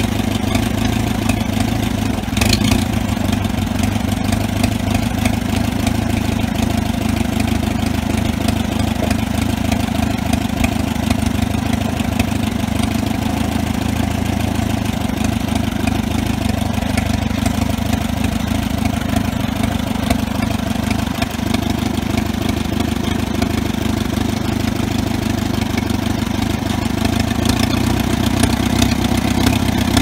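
1955 Allis-Chalmers D270 tractor engine running steadily while the tractor is driven slowly.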